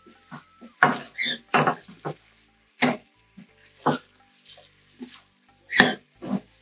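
Wooden spatula scraping and knocking against a non-stick frying pan as fish pieces in a thick spice paste are stirred, in short irregular strokes with brief pauses between them.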